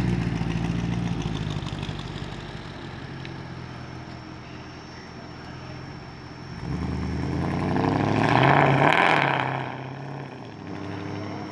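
Mercedes-AMG C63's V8 engine running steadily, then revved once: the note rises from about six and a half seconds in to a loud peak near nine seconds and falls back.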